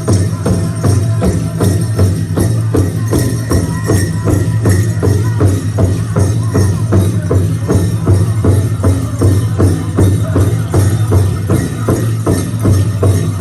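Powwow drum song: a big drum struck in a steady, even beat of about two to three strokes a second, with singers over it.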